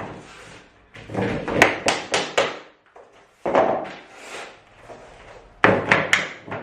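Cork click-lock floor planks being knocked into their joints: a quick run of sharp wooden knocks about a second in, a scraping slide of a plank around the middle, and another quick run of knocks near the end.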